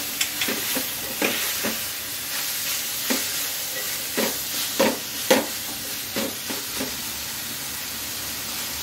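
Shredded cabbage sizzling as it is stir-fried in a steel pan, with a spatula scraping and knocking against the pan in about ten irregular strokes. The strokes stop after about seven seconds, leaving only the steady sizzle.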